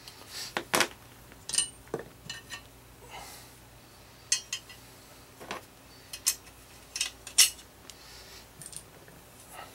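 Irregular metal clinks and taps of steel mower blades, washers and bolts being handled and fitted to the blade holder, with the bolts started by hand.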